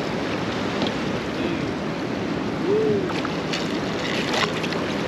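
Steady rush of river water around the boat, with wind on the microphone. A short squeak a little under three seconds in and a few faint clicks near the end.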